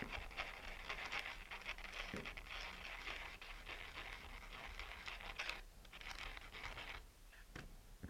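A short piece of 1/16-inch aluminium tube being rubbed back and forth on sandpaper on a sanding block to shorten it, a steady scratchy grinding for about five and a half seconds. After a brief pause there is a second, shorter bout of sanding, then a light click near the end.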